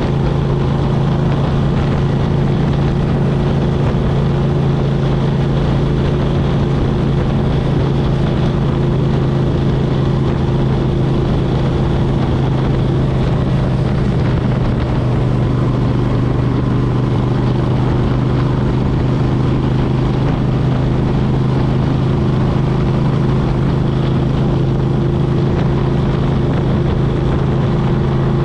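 2003 Suzuki Intruder 1400's V-twin engine running through a Vance & Hines Classic exhaust at a steady cruising speed, with wind rushing past.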